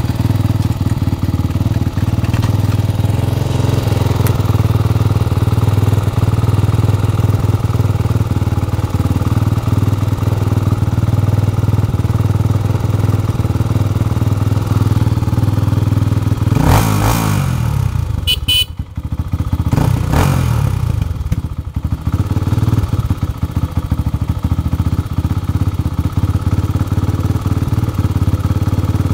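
Honda XR400R's single-cylinder four-stroke engine idling steadily, with two brief revs in the middle, each falling back to idle.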